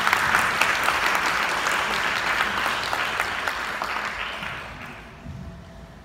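Audience applauding, the clapping dying away about five seconds in.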